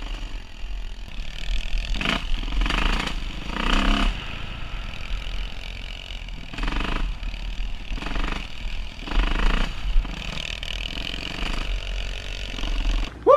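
Dirt bike engines running during a trail ride, heard from a following bike, with the revs picking up in short bursts several times.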